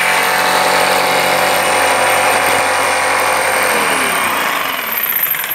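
Hitachi jigsaw running, its reciprocating blade cutting through plywood. About four seconds in its pitch falls, and the saw stops near the end.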